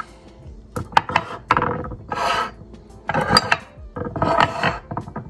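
Stone canisters and glass bottles being slid and set down on a marble counter board: a few sharp clinks and knocks, then several stretches of scraping rubbing as they are pushed into place.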